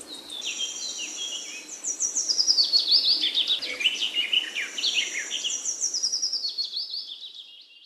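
Birds chirping: many quick, high chirps overlapping, fading out near the end.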